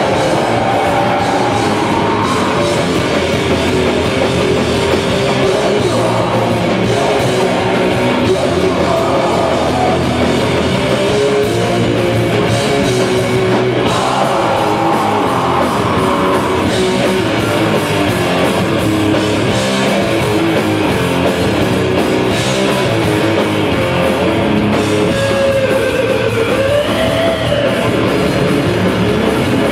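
Live heavy metal band playing loud and without a break: distorted electric guitars over drums.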